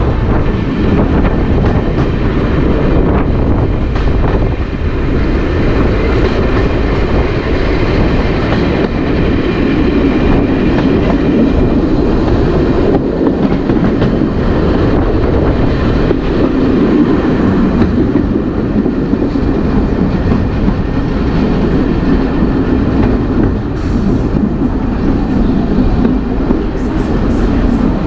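Heritage diesel multiple unit running along the line, heard from on board: a steady rumble of the diesel engine and of the wheels on the rails.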